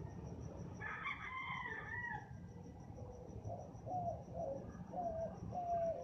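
A rooster crows once, about a second in, over a steady high chirping of crickets. In the second half a bird calls in a run of short, slightly falling notes.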